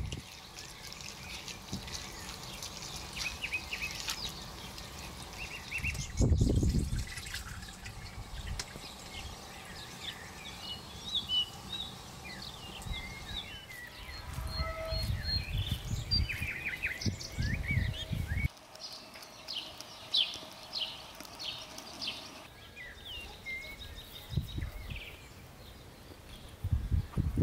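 Grated potatoes squelching as they are kneaded and pressed down by hand in a metal strainer, with their liquid trickling out. Birds chirp in the background throughout.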